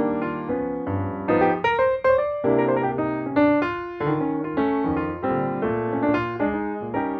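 Background piano music: an unbroken run of notes, each struck and fading, at an even pace.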